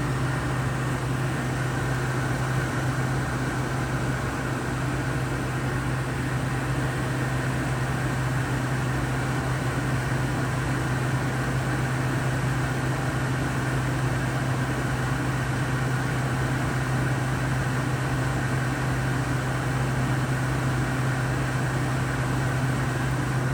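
Frigidaire window air conditioner running steadily: the blower fan with an even steady low hum.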